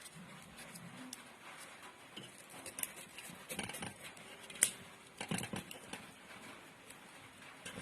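Scattered small clicks and rustles of hands working on a grinder motor's coil winding, with one sharp click a little past halfway.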